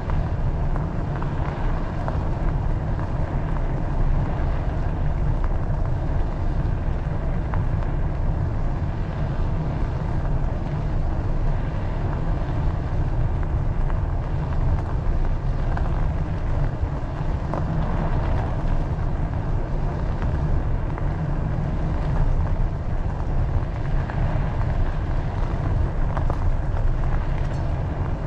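Steady low rumble of wind buffeting the microphone of a camera on a moving bicycle, with a fainter rushing hiss above it.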